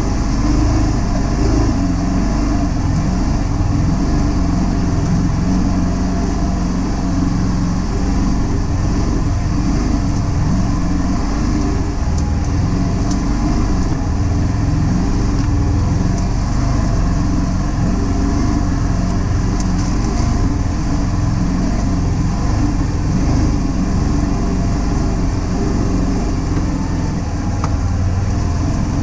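Can-Am Defender HD10 side-by-side's Rotax V-twin engine running steadily, at an even level throughout.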